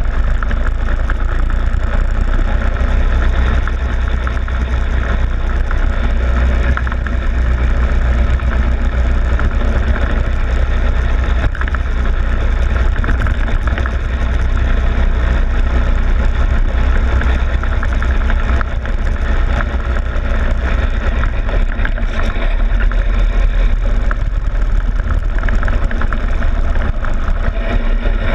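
Go-kart engine running steadily at speed, heard through a camera mounted on the kart's loosely fixed front plastic fairing, with a heavy low rumble underneath.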